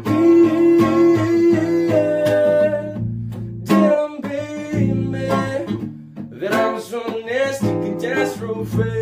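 Nylon-string classical guitar being strummed, with a man scat-singing wordless syllables over it.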